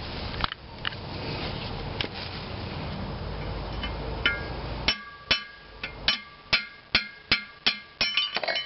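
Slide-hammer gib key puller being worked against a tight flywheel gib key: after a few faint clicks, sharp metal-on-metal clanks start about five seconds in and come about three a second, each ringing briefly.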